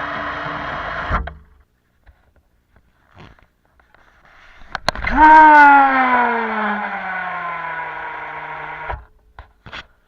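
Waltter Move 500 fishing reel buzzing as its spool spins. A steady buzz stops about a second in. Near the middle a second spin starts with a quick rise in pitch, then slows with a steadily falling pitch over about four seconds, and cuts off sharply. A few faint clicks come in between.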